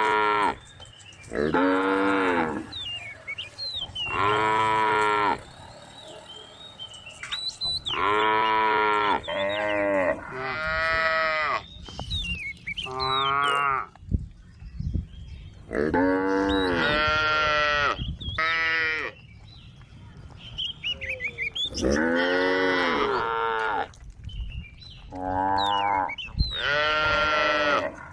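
Cows mooing over and over, one drawn-out call after another, each lasting a second or two. The calls differ in pitch, some overlap, and they come from several animals calling to the herd.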